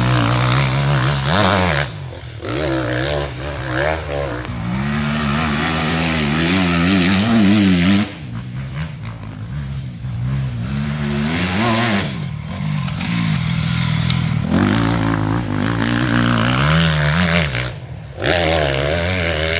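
Enduro dirt bike engine revving up and dropping back again and again as a rider works the throttle through the gears. The sound drops suddenly about eight seconds in and again near the end.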